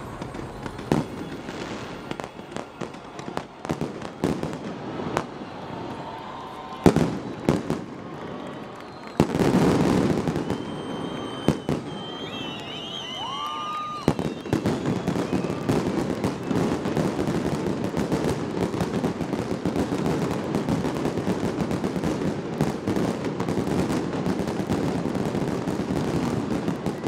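Fireworks display: scattered sharp bangs of bursting shells, a louder burst about nine seconds in and a few whistles, then dense, continuous crackling from about halfway on.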